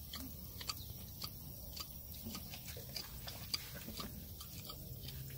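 Hoof knife cutting into an elephant's tough foot pad: a run of short crisp clicks, about two a second, as slivers of sole are pared away around a wound in the pad.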